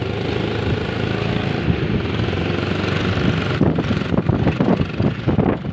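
Motorcycle engine running steadily while riding along a street.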